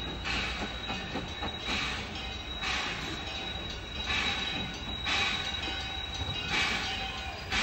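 Steam locomotive working slowly, about one hissing exhaust chuff a second over a steady low rumble, with a thin high squeal running through.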